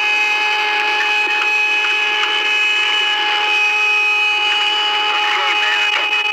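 Apollo 10 radio recording of the 'outer space type music': steady whistling tones over radio hiss, with warbling sounds near the end. A NASA engineer put it down to interference between the lunar module's and command module's VHF radios.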